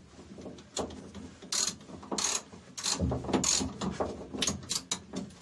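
Socket ratchet clicking in short, uneven bursts as the bolts of a rear subframe brace are run down and snugged by hand before final torquing.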